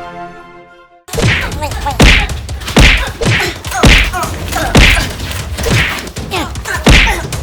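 Music fades out in the first second. Then comes a run of heavy whacks and thuds, about one a second, with falling whistle-like tones between them.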